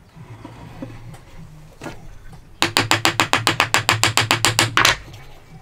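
A steel hammer tapping a wooden joint, a fast even run of about twenty light, sharp strikes, some nine a second, starting about two and a half seconds in and stopping abruptly near the end, with a few softer wood knocks before it.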